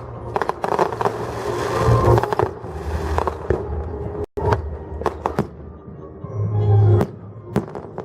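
Fireworks bursting in quick succession, many sharp bangs over a continuous crackle. The sound cuts out for an instant about four seconds in.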